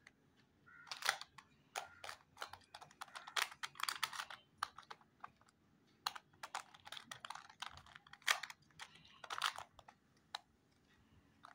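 Plastic Ivy Cube twisty puzzle clicking and clacking as its corners are turned by hand: quick runs of sharp, irregular clicks with brief pauses between.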